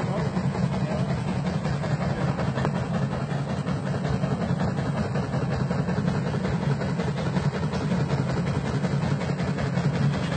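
An engine running steadily at an even, low hum.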